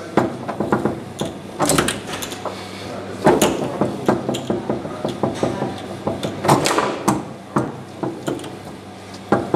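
Tecball foosball table in play: quick, irregular clacks and knocks as the ball is struck by the plastic players and hits the table, with the steel rods sliding and knocking in their bearings.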